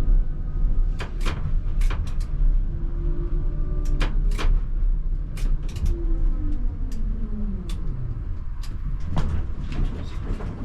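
ČKD Tatra T3R tram running, heard from inside the cab: a steady rumble of wheels on rail with sharp clicks and knocks over joints. A motor whine falls in pitch from about six seconds in as the tram slows.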